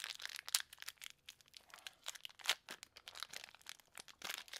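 Shiny black wrapper of a blind-bag enamel pin crinkling and crackling as fingers work it open, in a run of irregular crackles with a few louder ones.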